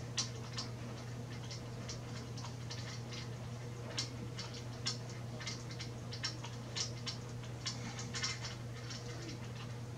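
Small irregular clicks and taps of bolts and washers being handled and fitted by hand into the base of an iOptron GEM45 equatorial mount on its tripod, a few louder clicks standing out among them, over a low steady hum.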